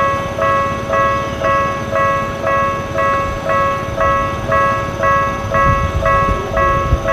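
Japanese level-crossing warning alarm ringing its repeating electronic bell tones, about two strikes a second, with a low rumble growing near the end.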